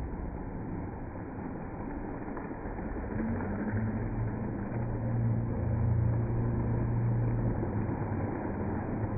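Steady rushing noise of the Khoiachora waterfall, with a low rumble that swells from about three seconds in and eases near the end.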